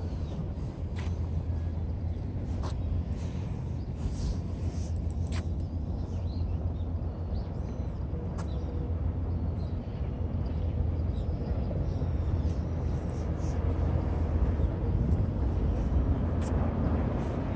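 Outdoor ambience: a steady low rumble with a few faint clicks.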